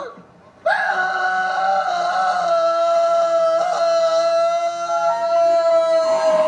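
Steam locomotive whistle in a film soundtrack played through a TV: one long blast of several steady tones at once, starting sharply about a second in and held for over five seconds, with a higher note joining near the end.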